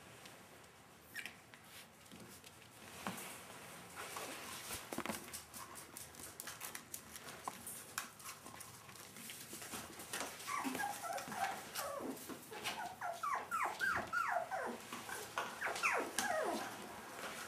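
Shetland sheepdog puppies: soft scratching and rustling for the first several seconds, then a long run of short, high whimpers, each sliding down in pitch, coming in quick succession.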